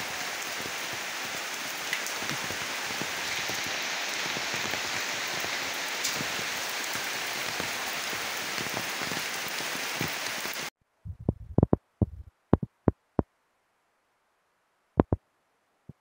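Heavy rain falling steadily. It cuts off suddenly about ten seconds in, and a few scattered sharp knocks follow.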